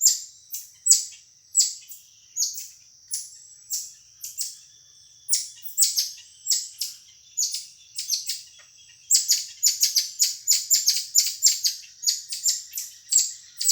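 A marmoset (mico) calling with short, very high-pitched chirps, one or two a second at first, then coming much faster about nine seconds in.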